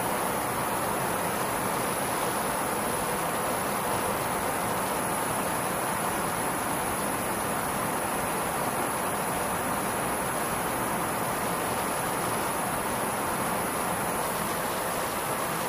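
Steady in-flight rush of airflow and engines heard from inside the camera aircraft, with a thin high whine over it.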